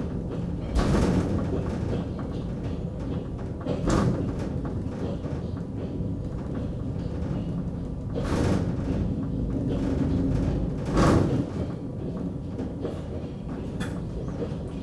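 Car of the Dresden suspension railway, a cable-hauled hanging railway, running along its overhead track: a steady rumble with a louder rattling surge about every three to four seconds, five times in all.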